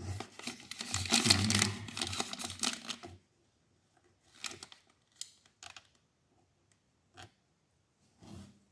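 Scratching and scraping at the edge of a laptop touchpad as a thin object is worked back and forth in the gap under the stuck right-click button. This lasts about three seconds, followed by a few faint short scrapes and clicks.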